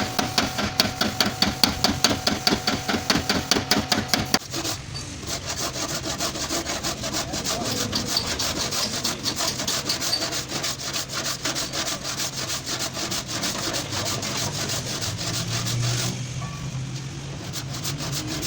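Sheet-metal dent repair on a car's boot lid: hammer blows on the panel, about three a second with a metallic ring, stop about four seconds in. A steady rasping scrape of tool work on the panel follows.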